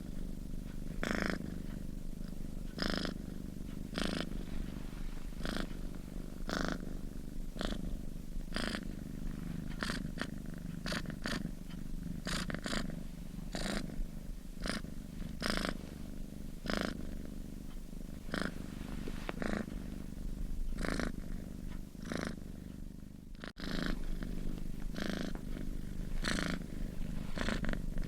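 Domestic cat snoring in its sleep: a short raspy snore with each breath, about every second and a half, over a steady low rumble. There is a brief gap about five seconds before the end, after which the snoring is a little louder.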